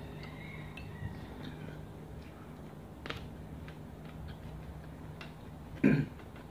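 Quiet eating by hand: scattered faint clicks of chewing, lip smacks and fingers on the plate over a steady low hum, with one short, much louder knock near the end.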